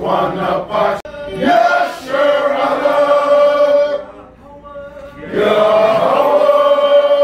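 Congregation singing a praise chant together, in two long held phrases with a short quieter gap between them.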